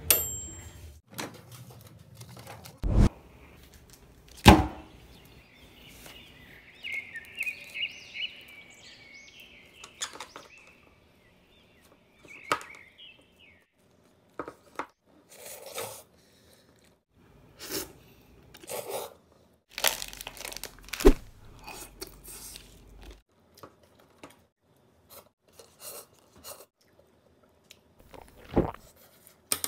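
Close-up eating sounds: chewing, with scattered clicks and knocks as wooden chopsticks stir instant noodles in a paper cup and wrappers are handled.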